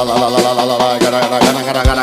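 Electronic dance music with a steady beat and sustained synth chords; a deep bass comes in near the end.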